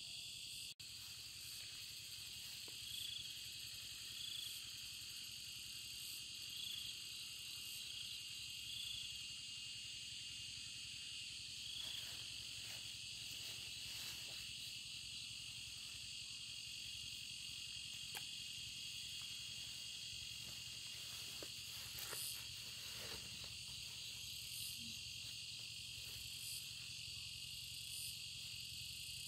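Steady high-pitched chorus of insects, with small repeated chirps over it. A few soft rustles come through about halfway and again later on.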